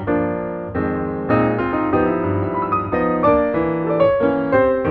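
Background piano music playing chords and a melody.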